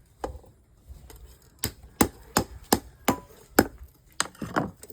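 Blacksmith's hammer striking iron on an anvil in a quick run of sharp blows, roughly three a second, after a short pause at the start.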